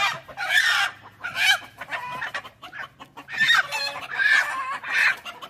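Game rooster squawking and clucking in a rapid string of loud calls, about two a second, as it is grabbed and held.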